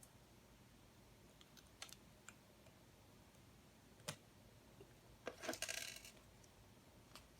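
Small plastic LEGO Technic pieces clicking and rattling as they are handled, with a few single sharp clicks and a louder clattering burst a little past halfway.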